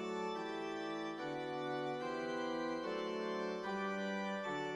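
Background organ music: held chords, the notes changing every half second to a second.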